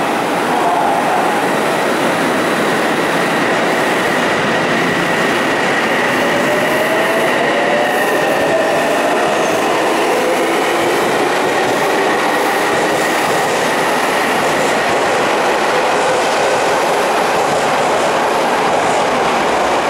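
Odakyu 3000-series electric commuter train pulling out and accelerating past the platform. The whine of its traction motors climbs in pitch in several rising tones under the steady rolling noise of its wheels on the rails.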